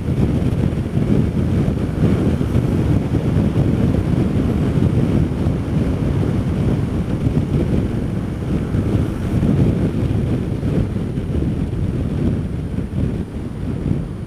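Wind buffeting the microphone of a camera on a moving Honda Dio scooter: a dense, steady low rumble with the scooter's riding noise mixed in. It eases a little near the end.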